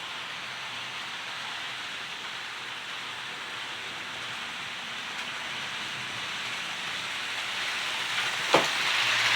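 HO scale model locomotive running on its track, a steady rolling whir of the motor and metal wheels on rail that grows gradually louder, with a sharp click near the end.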